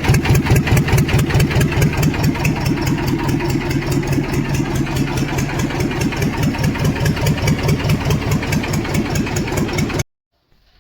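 Swaraj 724 tractor's two-cylinder diesel engine running at a steady idle with the silencer removed, loud open exhaust with evenly spaced pulses. It cuts off suddenly near the end.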